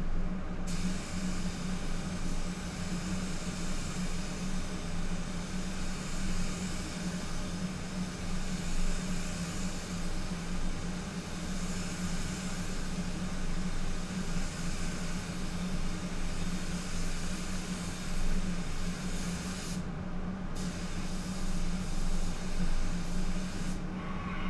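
Gravity-feed spray gun hissing as it sprays base coat, starting about a second in and pausing briefly around twenty seconds in and again near the end. A steady low hum from the spray booth runs underneath.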